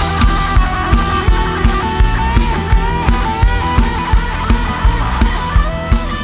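Live rock band playing an instrumental passage: an electric guitar plays held, bending lead notes over a steady drum beat of about three hits a second.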